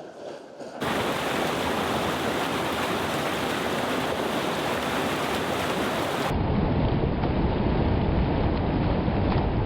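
Steady rush of creek water tumbling over falls, cutting in abruptly about a second in. About six seconds in it switches to a duller, deeper rush of water.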